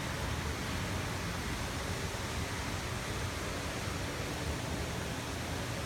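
Steady, even hiss of background noise, with no distinct sounds standing out.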